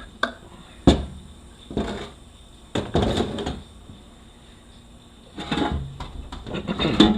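Handling sounds from a 6L80E automatic transmission being taken apart as its oil filter is pulled off. A sharp knock about a second in, then several short bursts of scraping and rattling from hard parts being worked loose and set down.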